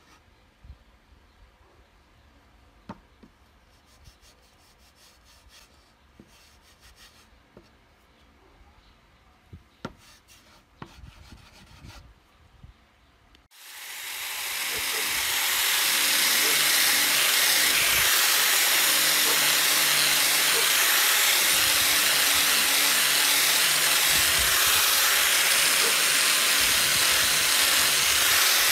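A few faint knocks of wooden strips being handled on a workbench. About halfway through, an angle grinder fitted with a sanding disc starts up and runs steadily against a wooden strip: a loud, even sanding hiss over a motor hum.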